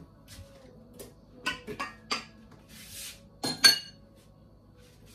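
Stainless steel mixing bowl and kitchen utensils clinking and knocking on the counter as the bowl is handled at the stand mixer, a few light knocks followed by one loud metal clank with a brief ring about three and a half seconds in.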